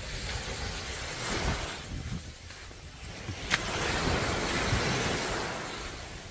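Sea waves washing onto a beach, the surf swelling louder about three and a half seconds in, with wind buffeting the microphone and one sharp click about halfway.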